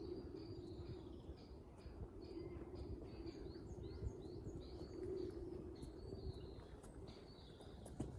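Small birds singing in woodland: quick repeated high chirps and short gliding notes throughout, over a steady low hum.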